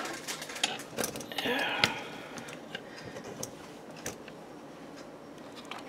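Handling noise from a plastic model car and the camera being moved about close to the microphone: a cluster of light clicks, taps and a short rustle in the first two seconds, then a few scattered ticks.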